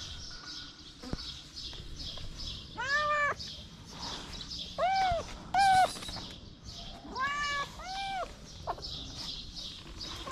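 Cats meowing: about five short meows, each rising then falling in pitch, coming in pairs through the middle.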